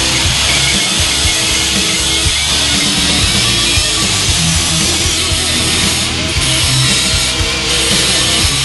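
Loud heavy-metal music with distorted electric guitar and a driving drum beat.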